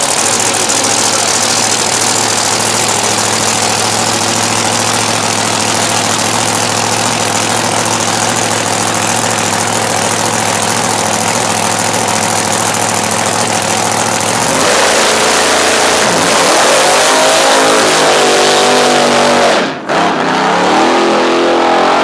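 Supercharged drag car engine idling steadily, then, about fourteen seconds in, revving hard as the car launches down the strip, its pitch climbing and wavering through the run. There is a brief sharp break in the sound near the end.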